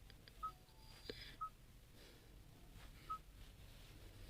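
Three short single-pitch touchscreen key beeps, irregularly spaced about one to one and a half seconds apart, as digits of a Bluetooth pairing code are tapped in.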